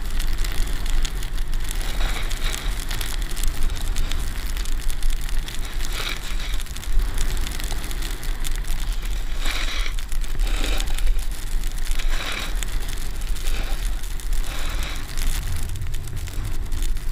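Wind rumbling on a helmet or action-camera microphone during a fast downhill run, over the hiss and scrape of edges sliding and carving across snow, the scraping swelling in surges several times as the rider turns.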